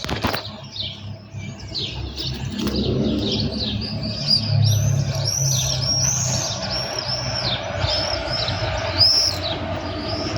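Small birds chirping rapidly over and over, with the low rumble of an approaching train building underneath from a few seconds in.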